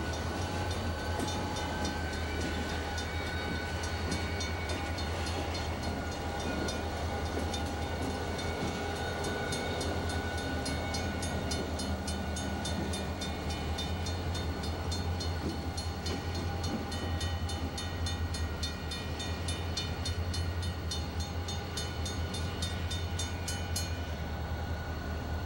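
Burlington Northern diesel freight locomotives running past close by: a steady low engine rumble with a fast, even ticking on top, which stops about a second before the end while the low rumble carries on.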